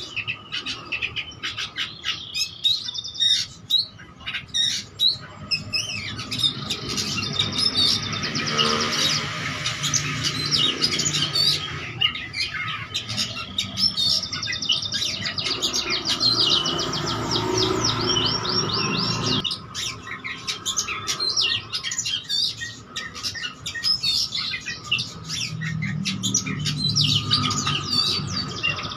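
Oriental magpie-robin (kacer) singing continuously in a long, varied song of chirps, whistles and fast trills. The song is packed with mimicked phrases of other birds' calls, and a run of rapid trills comes about halfway through.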